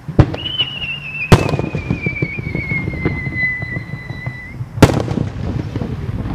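Aerial firework shells going off: a loud boom just after the start, another about a second later and a third near five seconds in, with an echoing rumble between them. Over them a whistle from a rising shell sounds for about four seconds, its pitch sliding slowly down.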